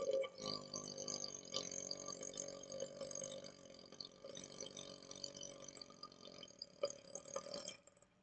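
A man's long, drawn-out belch from chugged Sprite, rising from a carbonated-soda stomach. It is pitched and fairly smooth, with a few brief catches, lasts nearly eight seconds and cuts off near the end.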